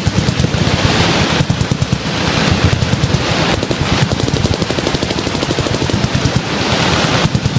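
Many full-auto machine guns firing at once, their bursts overlapping into a continuous rattle of shots with no pause.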